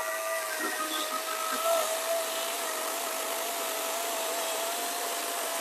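EGO CS1400 14-inch 56-volt cordless chainsaw running at full speed as its chain cuts through a log. The motor's whine holds a steady pitch under load without bogging down, over the rasp of the chain in the wood.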